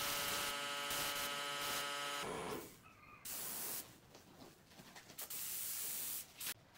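Pneumatic spray gun hissing as it sprays a coating onto a wooden chair. One steady spray lasts about two and a half seconds, then come two shorter bursts with pauses between them and a brief puff near the end.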